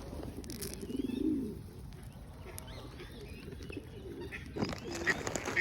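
Pigeons cooing, with one low coo about a second in, over faint chirping of small birds; other birds grow livelier near the end.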